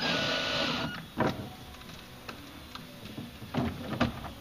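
Cordless drill-driver running for about a second, setting a screw through the filler plate into the floorboard, followed by a few light clicks.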